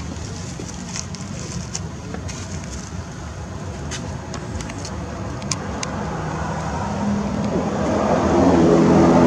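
A motor vehicle's engine running steadily, growing louder over the second half and loudest near the end as it comes close, with a few faint ticks in the middle.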